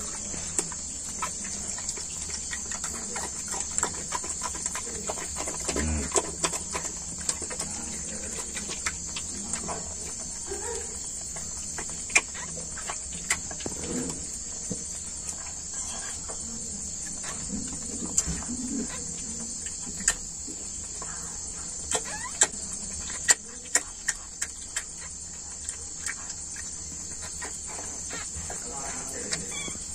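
Steady high chirring of insects, with scattered sharp clicks and wet smacks from a mother dog licking and cleaning her newborn puppies.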